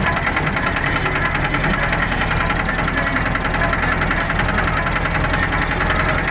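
Motorboat engine running steadily, with a fast, even pulse.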